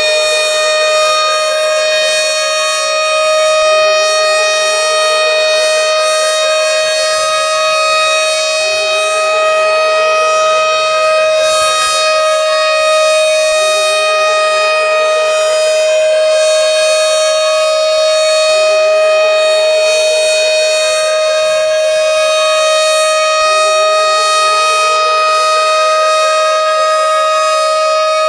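Tornado warning siren sounding continuously: a steady held tone, with a lower tone that slides upward and starts over about every five seconds.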